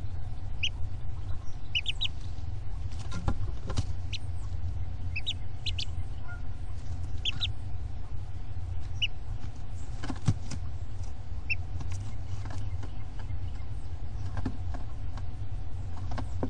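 Wood duck ducklings peeping from the nest box: scattered short, high peeps, some in quick pairs and threes, fewer after about twelve seconds. A steady low rumble runs underneath, with a few sharp knocks.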